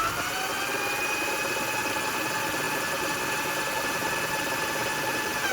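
A high, many-toned whine that glides up in pitch, holds steady over a hiss, then starts to glide down near the end.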